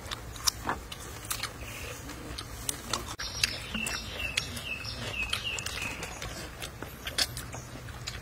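Close-up eating sounds: sharp crunching bites of raw cucumber and chewing of braised pork, in many quick clicks. A bird chirps in a short warbling run around the middle.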